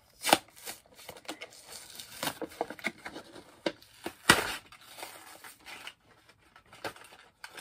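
Plastic-and-cardboard blister pack of a toy train being handled and pried open: crinkling and crackling plastic with scattered clicks, and two loud sharp snaps, one just after the start and one about four seconds in.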